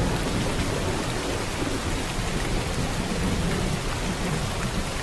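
Steady rain falling, an even hiss with a low, continuous rumble underneath.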